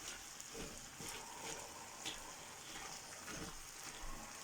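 Chunks of sweet potato and potato being dropped into a cooking pot: a few soft, scattered knocks over a faint steady hiss.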